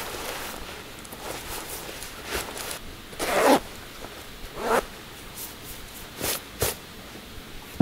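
Zipper of a nylon down puffer jacket being done up in a few short rasping pulls, the longest about three seconds in, with the jacket's shell fabric swishing.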